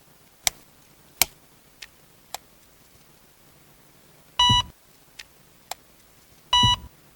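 An electronic toy beeping twice, each beep a short flat electronic tone about a quarter second long, the two about two seconds apart. Several sharp clicks of handling and pressing come before and between them.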